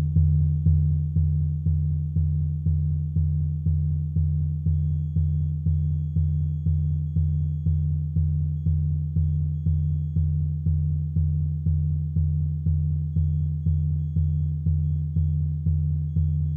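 Low synthesized droning tone pulsing evenly about two and a half times a second, each pulse starting sharply and fading.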